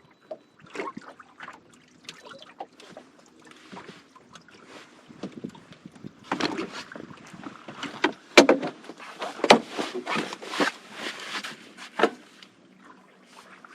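Knocks, clunks and rustling of gear being handled in a small fishing boat, busiest and loudest from about six to twelve seconds in, with two sharp knocks in that stretch.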